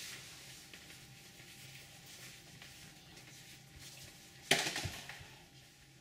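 Faint shuffling on a wooden floor, then a single sharp bang about four and a half seconds in as a glass-panelled door shuts, dying away over about a second.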